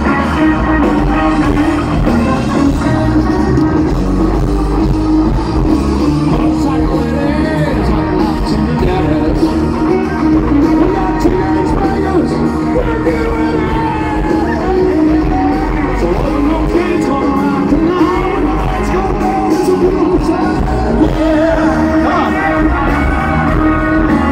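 Live rock band playing with a singer, loud and steady.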